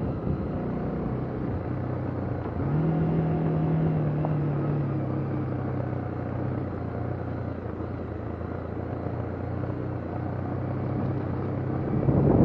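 A vehicle engine running steadily, its low hum stepping up in pitch about three seconds in and then easing back.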